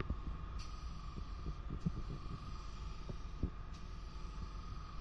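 High air hiss from a paint spray gun laying down a white base coat, changing with each pass about every second or two, over a low rumble with a few soft knocks.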